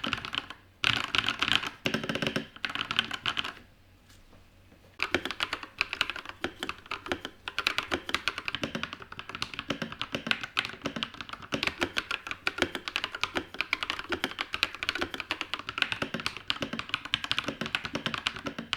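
Fast typing on a TM680 custom mechanical keyboard with Akko Red Radiant switches and Akko 9009 keycaps: a dense run of keystroke clacks, with short pauses near the start and about four seconds in, then continuous typing.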